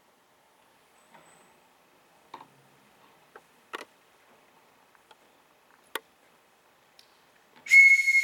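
A few faint scattered clicks and knocks, then near the end a loud, steady whistle blast starts sharply and holds one high pitch.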